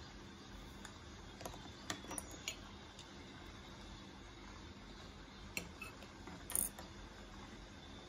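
A few light clicks and clinks of a metal fork against a ceramic plate as it is picked up and set back down, a cluster about two seconds in and the loudest near the end, over a faint steady hum.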